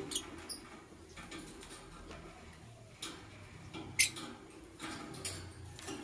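Rosy-faced lovebird giving a few short, sharp, high-pitched chirps, the loudest about four seconds in.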